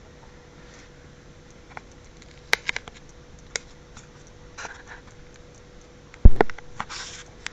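A sleeping Pekingese's soft breaths, two short hissy ones rather than a run of regular snores, among scattered small clicks and scratches. One loud thump comes about six seconds in.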